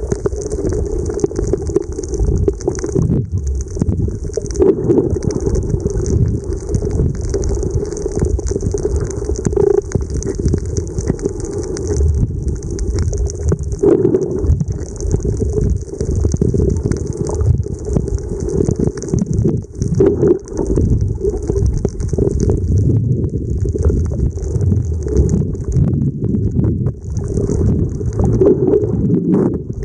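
Muffled, churning water noise from a camera held just under the sea surface, with irregular knocks and splashes against the housing.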